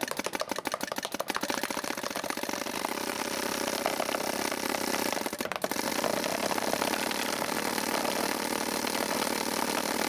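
Automated, microcontroller-controlled paintball gun firing in rapid succession: a quick run of shots, about nine a second, that speeds up into a continuous mechanical rattle, with a brief break about five and a half seconds in.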